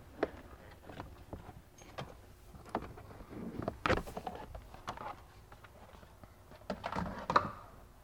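Lower dash cover being pulled free and handled under the dashboard: scattered clicks, knocks and scrapes, busiest about four seconds in and again near the end.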